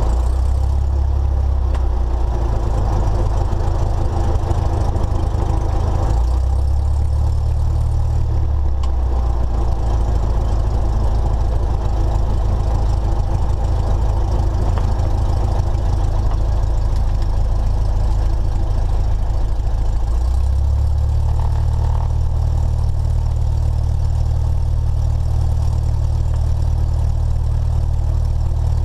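Cessna 172SP's four-cylinder Lycoming IO-360 engine and propeller running at taxi power, heard inside the cabin. The engine note is steady but shifts to a new pitch three times, about six, eight and twenty seconds in, as the throttle is moved.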